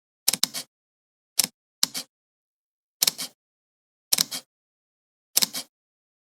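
Camera shutter released about six times at uneven intervals, each release a quick double click, with dead silence between.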